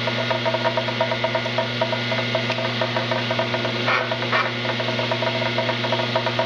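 Power tile-cutting tool running steadily, its motor hum under the noise of the blade grinding through a tile to cut a notch. Two brief sharper sounds come about four seconds in.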